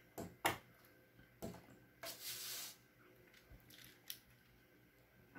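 Plastic clicks and knocks from a transforming Optimus Prime toy truck being picked up and handled, the loudest about half a second in, with a brief rustle around two seconds in and a few faint ticks near the end.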